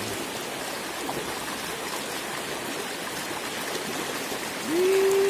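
Shallow forest stream rushing and splashing over stones, a steady watery hiss. Near the end a man's voice cuts in with one long drawn-out exclamation.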